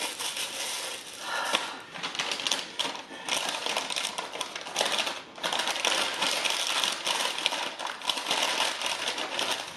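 A white takeout paper bag rustling and crinkling as it is handled and opened by hand, a dense crackle with a few brief pauses.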